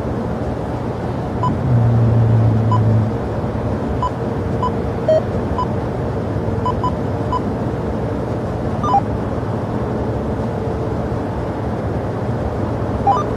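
Steady rumbling noise of jet aircraft at an airport, with a louder low hum for about a second and a half shortly after the start and a few faint short beeps scattered through.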